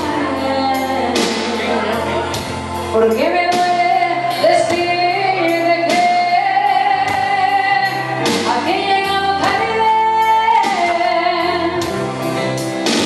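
A woman singing a romantic ballad into a microphone over backing music with a steady beat, holding long notes that slide up into higher held notes.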